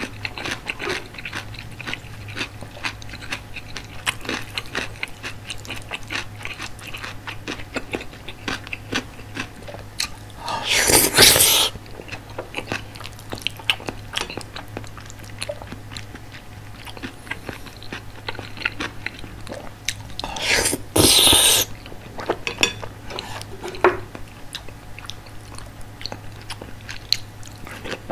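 Close-miked eating sounds of a person chewing curry rice: steady wet chewing with many small mouth clicks. Two louder noisy bursts of about a second each come around ten and twenty seconds in.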